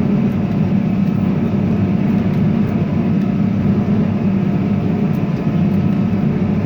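Tractor engine running steadily at road speed, a constant low drone.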